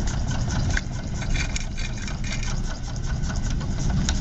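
Small model steam engine running with a rapid, steady mechanical clatter.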